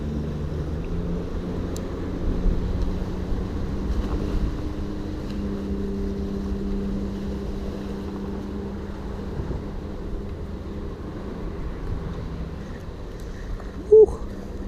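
Steady low engine drone whose pitch drifts slowly, with a short, loud squeak near the end.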